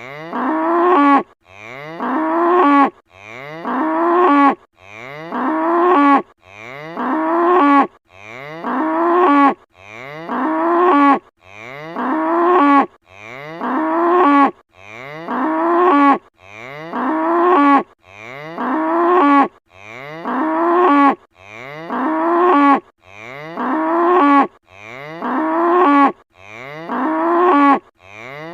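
A single cow's moo sound effect played on a loop, the same short call repeating over and over about once every second and a half or so.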